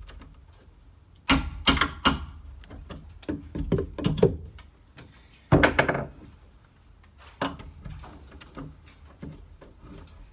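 Claw hammer blows on nails in wooden framing as the nails are worked loose for pulling: a quick run of four ringing metal-on-metal strikes about a second in, then a heavier knock in the middle and another a couple of seconds later, with small taps and clicks between.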